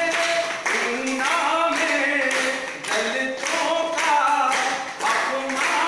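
A man singing a Hindi song unaccompanied, while a group claps along in time.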